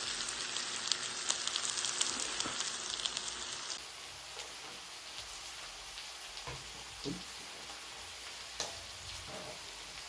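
Marinated meat sizzling on the grill plate of a SEAAN 2-in-1 electric grill, with dense crackling that drops to a softer, steady sizzle about four seconds in. A few light knocks come later.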